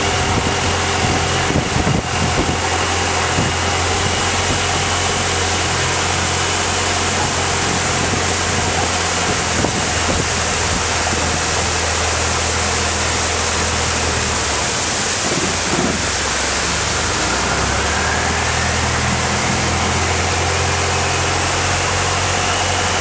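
Longtail boat engine running steadily under way, with water and wind rushing past. The engine eases off briefly about two-thirds of the way through, then picks up again with a rising whine.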